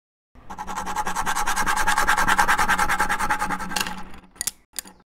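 Logo intro sound effect: a fast, even rattle of about eleven pulses a second over a low steady hum, cutting off sharply a second before the end, then two sharp clicks.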